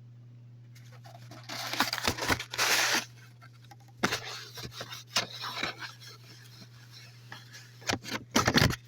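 Irregular rustling, scraping and clicking, like objects being handled, over a steady low electrical hum.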